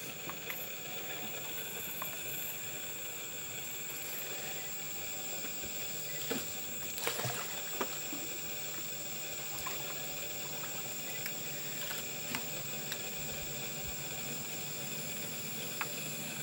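Amazon rainforest ambience: a steady high-pitched drone over a soft even hiss, with scattered light clicks and knocks, a small cluster of them about seven seconds in.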